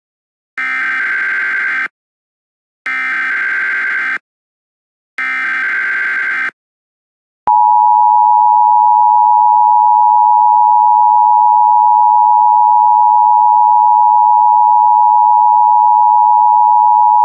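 Emergency Alert System tones: three short bursts of SAME header data tones, each about a second long and a second apart, then the loud two-tone attention signal, a steady dual tone held for about ten seconds. The tones open a new weather warning broadcast.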